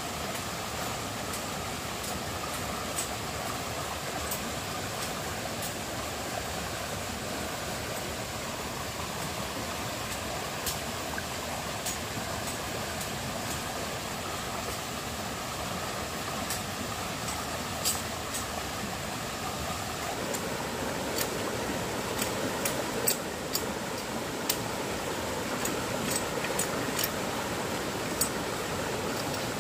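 Shallow rocky stream rushing steadily, a little fuller and louder from about two thirds in, with scattered sharp clicks that come more often near the end.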